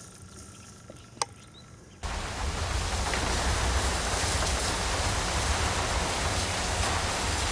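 Faint outdoor quiet with a steady high tone and one sharp click just over a second in. About two seconds in, a much louder steady rushing noise with a deep rumble takes over suddenly.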